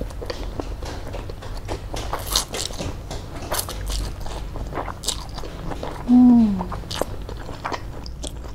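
A woman slurping and chewing fried noodles held up on chopsticks, with wet mouth noises and short sucking slurps. About six seconds in comes a short hum of the voice that falls in pitch.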